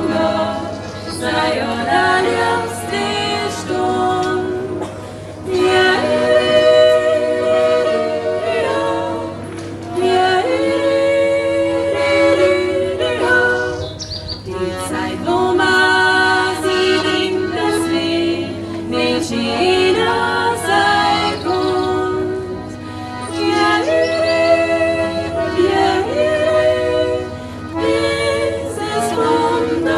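A group of voices singing a folk song in harmony, in phrases with short breaks between them.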